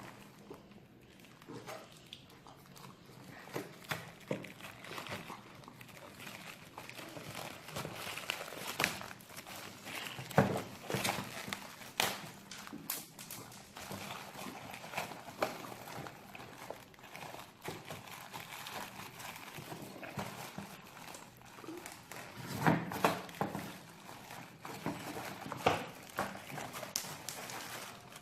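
Toy packaging being handled and torn at: irregular crinkling, rustling and small knocks as a child struggles to rip it open, with louder bursts of crackling now and then.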